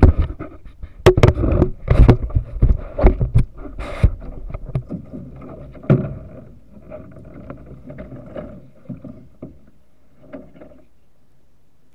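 Creek water splashing and sloshing around a camera dunked at the water's edge, with loud knocks and splashes on the microphone through the first half. After about six seconds it settles into a quieter, steadier wash.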